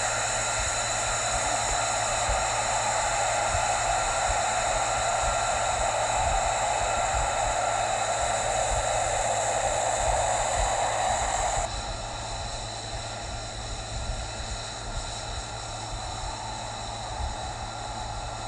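F-35B's single F135 jet engine running on the ground, a steady rush of exhaust with a high turbine whine over it. About two-thirds of the way through it drops abruptly to a quieter, duller run.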